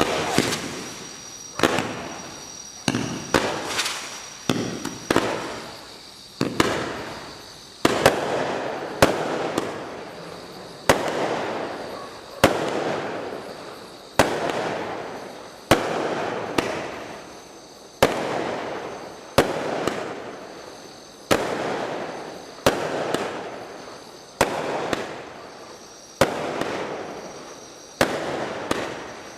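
Bright Star Sacred Heart 49-shot barrage firework cake firing shot after shot, a sharp bang about every second and a half, each dying away over about a second.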